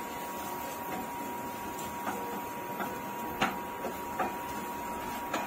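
Spatula stirring and knocking against a pan of frying onion, garlic, chilli and ginger masala on a gas stove: a handful of short, sharp clicks at uneven intervals over a steady sizzling hiss.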